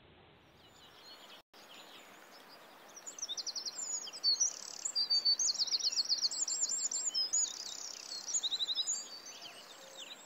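Small songbirds singing in quick, high, rapidly repeated trills and chirps over a faint steady outdoor hiss, starting about three seconds in.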